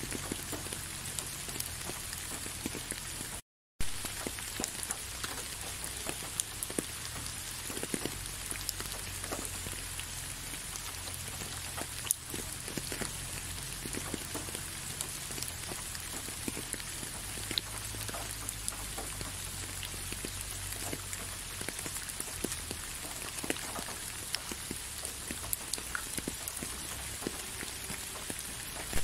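Steady rain, with many separate drops ticking sharply on a hard surface close by. The sound cuts out completely for a split second about three and a half seconds in.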